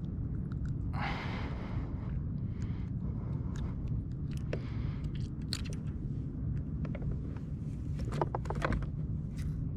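Scrapes, rustles and light clicks of a small bream and fishing tackle being handled on a kayak, over a steady low rumble. There is a short rustle about a second in, and a quick run of clicks near the end.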